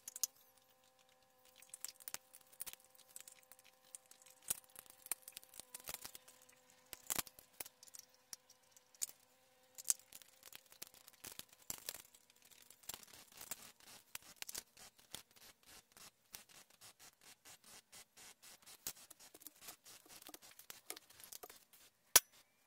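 Faint handling noise as wires are worked into a rotary power switch's housing: scattered small clicks, scrapes and rustles. A faint steady hum runs through the first half and fades out, and a sharp click comes near the end as the switch box is put against the metal frame.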